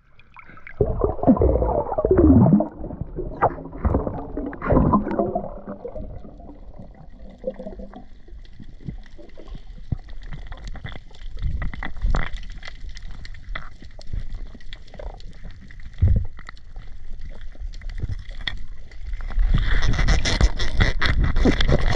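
Sea water sloshing and gurgling around the camera at the surface for the first several seconds, then underwater sound: a steady crackle of sharp clicks, with a louder rush of water near the end.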